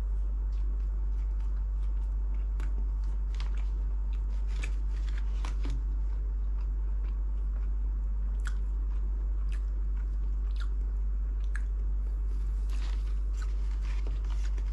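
A person biting into and chewing a soft custard-filled cake close to the microphone: scattered small clicks and smacks of eating, over a steady low hum.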